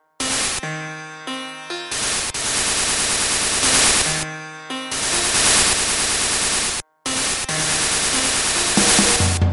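Harsh noise music: walls of static-like noise switch abruptly on and off, alternating with short stretches of steady pitched tones. There are hard cuts to dead silence right at the start and again about seven seconds in.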